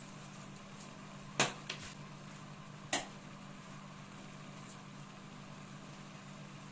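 A plastic spice shaker being handled and put down, giving a few sharp clicks about a second and a half in and one more at about three seconds, over a steady low hum.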